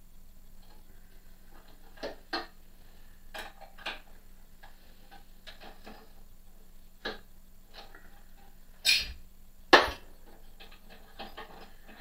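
Hand tools and metal parts clicking and knocking as they are worked by hand on top of a metal lathe's headstock. There are scattered light clicks, then two louder clunks about a second apart near the end.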